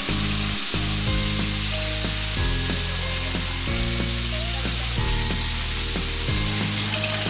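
Breaded chicken pieces deep-frying in hot oil, a steady sizzle, under background music with bass notes changing about every half second.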